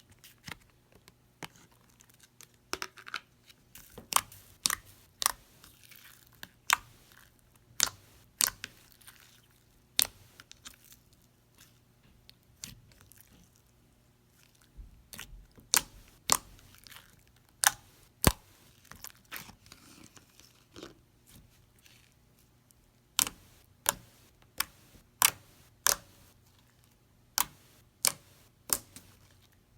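Thick, stretchy slime being worked by hand, giving off sharp, irregular clicks and pops. They come in uneven clusters and speed up to about two a second near the end.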